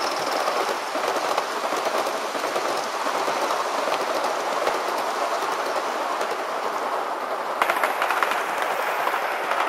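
Model trains running past on a multi-track layout: a steady, dense rattle of wheels rolling on the rails as a steam-outline locomotive and its coaches go by. About eight seconds in, a second locomotive passes closer and the sound turns sharper, with more clicking.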